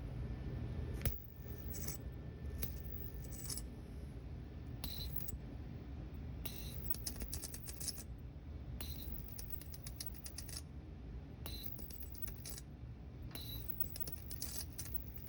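Crackling and snapping of 25 kV high-voltage arcs drawn from a CRT television's high-voltage supply: irregular sharp clicks over a low hum, with one louder snap about a second in.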